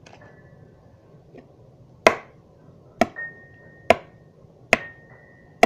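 An egg knocked against the rim of a mixing bowl to crack it: five sharp taps, about one a second, starting about two seconds in.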